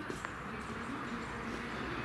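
Street ambience: a steady hum of road traffic, slowly growing louder.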